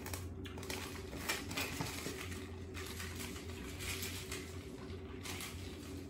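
Plastic shaker cup with ice inside being handled as its lid is fitted and closed: irregular light clicks and clinks.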